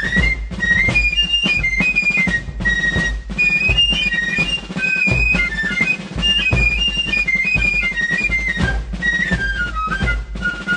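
Background music: a high melody moving note by note over a drum beat and a low bass.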